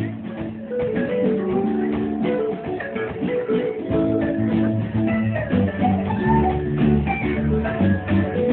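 Small live band playing amplified music: guitar over changing bass notes, with keyboard and a steady drum beat. The bass drops out for a few seconds in the first half and comes back about four seconds in.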